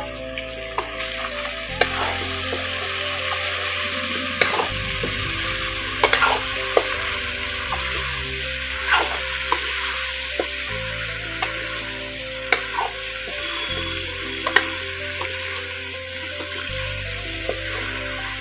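Pork and potato pieces sizzling in a metal kadai while a metal ladle stirs them, scraping and clinking against the pan every second or two over the steady sizzle.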